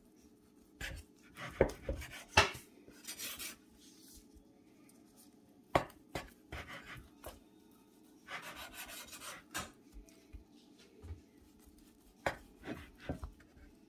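Large kitchen knife cutting through a slab of vegan beef on a wooden cutting board: scattered knocks of the blade meeting the board, with a couple of longer scraping strokes as the knife is drawn through.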